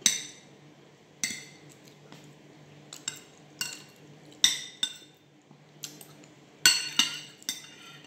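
Metal spoon and fork clinking and scraping against a ceramic plate while eating, about a dozen sharp irregular clinks with short ringing. A faint steady low hum runs underneath.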